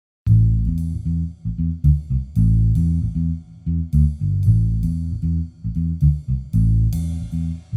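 Background music: a plucked bass guitar line with a steady beat, starting suddenly a quarter of a second in.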